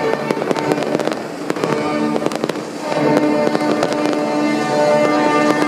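Fireworks going off in many rapid bangs and crackles, over music playing.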